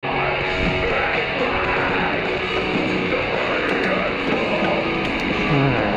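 Rock-style music playing steadily, with guitar.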